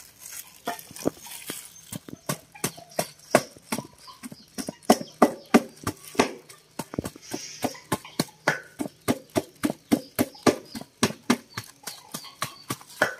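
Boiled breadfruit being pounded in a stainless steel bowl with a plastic-wrapped pestle: a steady run of dull knocks, about three a second, as the soft cooked flesh is mashed into a smooth, sticky dough.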